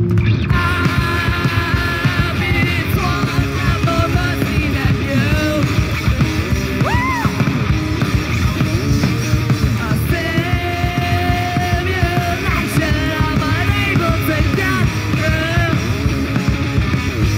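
Rock band playing live and loud: drums, electric guitars and bass, with a singer's yelled vocals over the top.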